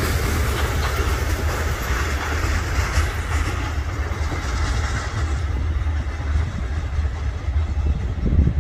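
Freight train rolling past: a steady low rumble of wheels on rail. The higher hiss of the wheels drops away about halfway through.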